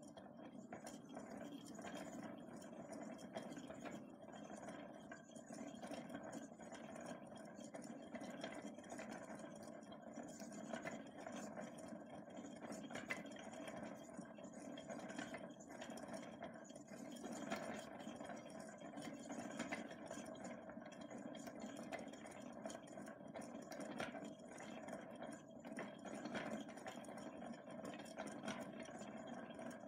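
Hand-cranked zaguri reeling tool turning steadily, its cast-iron handwheel spinning a wooden reel as yarn winds on. A faint, even mechanical running sound with light, irregular clicks.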